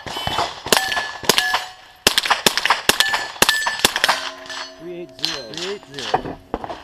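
A rapid string of rifle shots over about four seconds, with steel target plates ringing with a short clang after hits. The shots stop about four seconds in.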